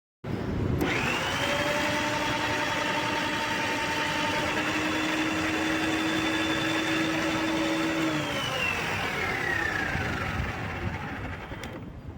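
Preethi Zodiac mixer grinder running as a food processor for grating: the motor whines up to speed within the first second, runs steadily for about seven seconds, then winds down in pitch and stops near the end.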